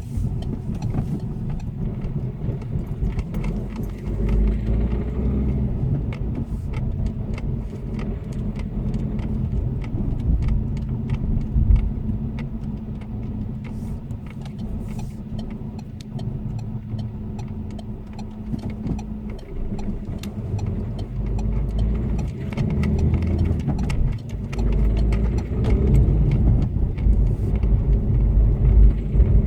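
Citroën C3 Picasso diesel engine running under way, with repeated ticking and clacking over its low rumble that comes up as the throttle is opened, in surges. The owner describes it as a gurgling clatter on acceleration and suspects at least one dripping fuel injector.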